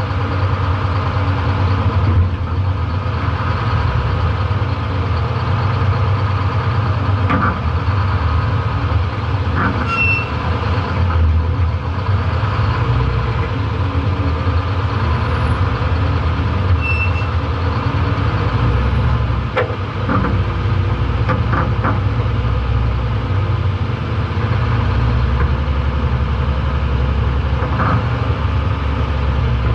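An old pickup truck's engine running steadily, heard close up from the hood, while the truck manoeuvres and pulls slowly away. A few light clicks and two short high squeaks cut through now and then.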